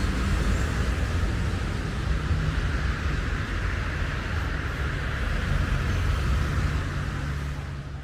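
Steady outdoor background noise of road traffic with a low, fluttering rumble, fading away near the end.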